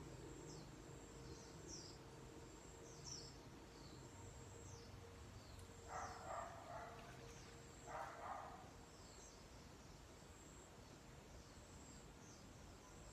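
Faint garden ambience: a bird repeating short, high, falling chirps every second or so over a steady insect drone. Two louder brief sounds stand out about six and eight seconds in.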